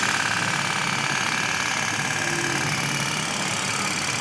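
Candle-heated tin pop-pop steam boat running on water, its heated twin pipes pulsing out a rapid, steady putt-putt as steam drives water out and the boat pushes forward.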